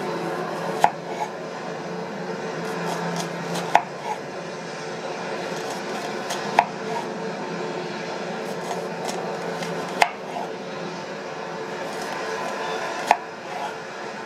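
Chef's knife cutting down through a peeled onion half and knocking on a bamboo cutting board: five sharp knocks about three seconds apart, each followed by a smaller tap, over a steady background noise.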